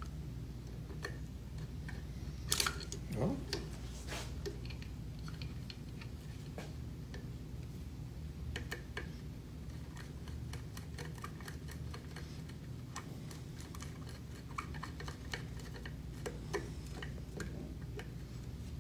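Small metal clicks and ticks of a screwdriver and small parts being worked inside an open pneumatic positioner housing, with a few louder clicks in the first few seconds, over a steady low room hum.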